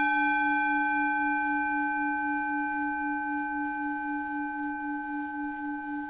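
Mars and synodic Moon planetary tuning forks ringing together: a steady low tone with a slow pulsing beat and several higher overtones, slowly fading.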